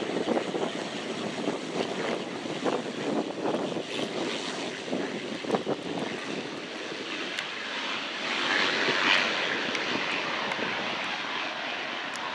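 Engine noise of a fixed-wing aircraft, a steady rush that brightens and grows a little louder around nine seconds in.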